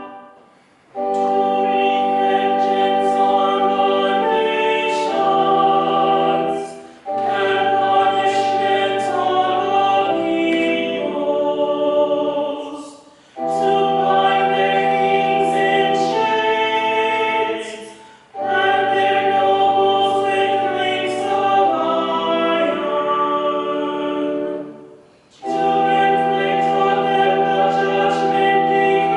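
Small church choir singing a sacred piece in harmony, in five phrases of about five to six seconds, each ending on a held chord and followed by a brief pause.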